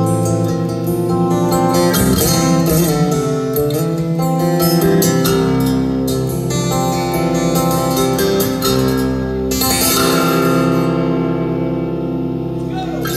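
Amplified acoustic-electric guitar played solo through a concert PA: fast picked runs over ringing, held notes.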